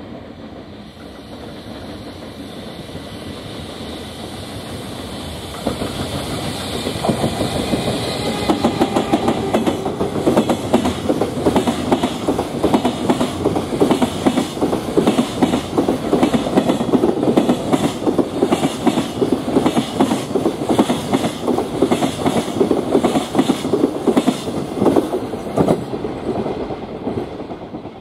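Electric-hauled container freight train passing close by: the locomotive's sound builds as it approaches and passes, then the wagons' wheels clatter over the rail joints in a steady, rapid rhythm. The sound cuts off abruptly near the end.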